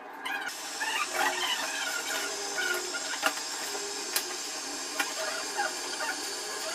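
A string of short, high squeaks and chirps, with a few sharp clicks in the middle.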